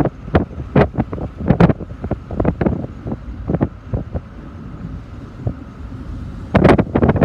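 Wind buffeting the microphone in irregular gusts over a low rumble, with a thicker run of gusts near the end.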